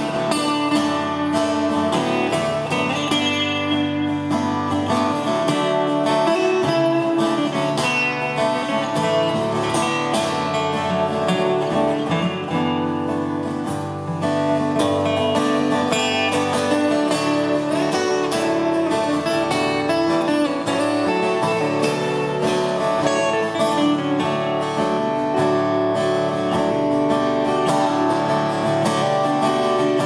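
Two acoustic guitars playing together, an instrumental break in a folk ballad between sung verses.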